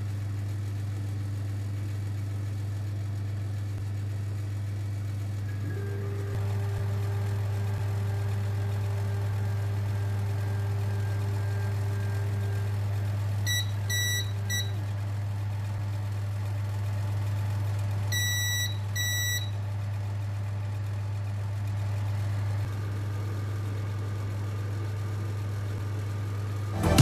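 Creality LD-002H resin printer: a steady low hum, with the Z-axis stepper motor whining at one steady pitch for about seven seconds as the build plate moves. Short electronic touchscreen beeps come in two clusters, one past the middle and a pair about two-thirds through.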